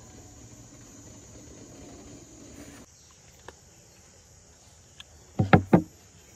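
A ceramic plate set down on a wooden table: three sharp knocks in quick succession about five and a half seconds in. Before that a steady low rumble near the steamer cuts off about three seconds in, with insects buzzing steadily throughout.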